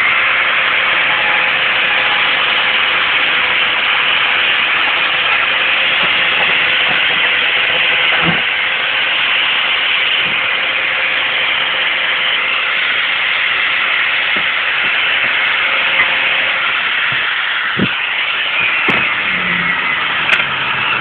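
Electric angle grinder with a red abrasive disc running steadily against a small welded nail-and-nut motorcycle sculpture, going over the metal to finish it. A few short knocks of metal on metal come through.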